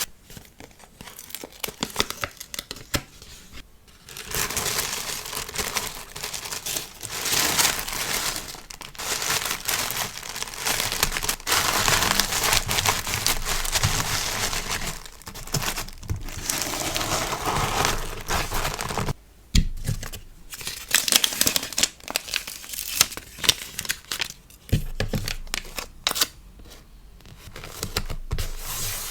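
Packaging being handled close up: crinkling wrappers and tearing, in irregular spells of rustle and crackle with short pauses between them.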